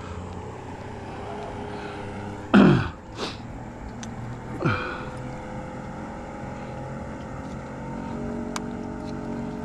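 Boat motor running steadily with a level drone. Two brief louder sounds cut through it, one about two and a half seconds in that falls in pitch, and a softer one near the five-second mark.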